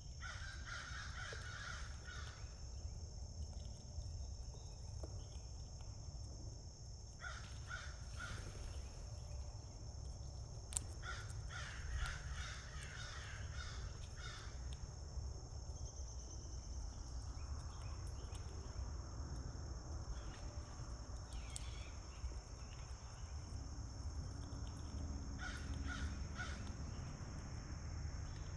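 A bird calling in quick series of calls, in four bouts, over a steady high-pitched drone.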